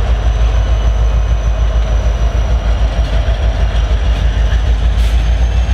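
Norfolk Southern diesel-electric locomotives moving slowly through a rail yard: a loud, steady deep engine rumble, with a single short click about five seconds in.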